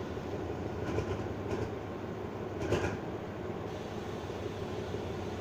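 Diesel locomotive idling at a standstill with a steady low engine hum. A few short clicks come about a second in, again shortly after, and near the middle.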